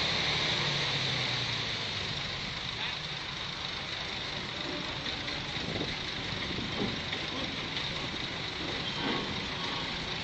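Heavy machine engine running steadily, its low hum easing a little about two seconds in.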